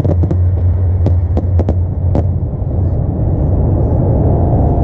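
Last scattered fireworks reports: several sharp cracks in the first two seconds over a steady low rumble, then only the rumble.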